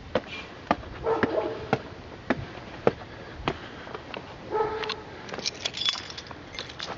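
Footsteps on hard steps, about two a second, with a dog's short whine heard twice, about a second in and again past four seconds.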